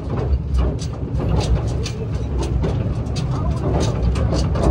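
Tractor engine running with a steady low rumble while it tows a loaded trolley over rough ground, with short sharp noises over it several times a second.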